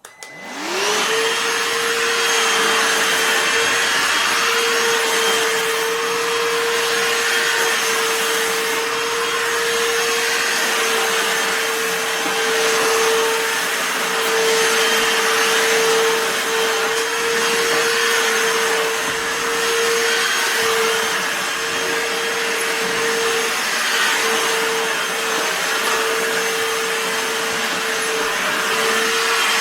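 Bosch UniversalVac 18 cordless handheld vacuum cleaner switched on, its motor winding up within about a second, then running steadily with a constant hum over a rush of air.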